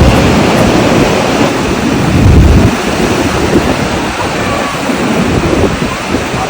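Ocean surf washing on a beach, with wind buffeting the microphone in low gusts, strongest at the start and about two seconds in.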